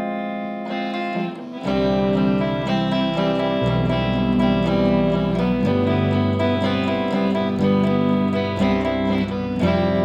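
Guitar-led band music with effects on the guitar; a bass line comes in just under two seconds in, its notes changing every couple of seconds.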